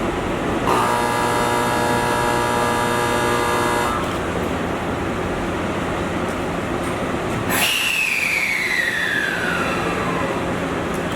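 A train horn sounds one steady blast for about three seconds, under the steady rumble of the railway. Later a sudden rush of noise comes, followed by a whine that falls steadily in pitch for about two and a half seconds.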